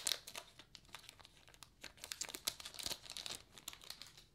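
Crimped foil wrapper of a Topps baseball card pack crinkling and tearing as it is pulled open by hand, in irregular crackles that are loudest at the start and die away near the end.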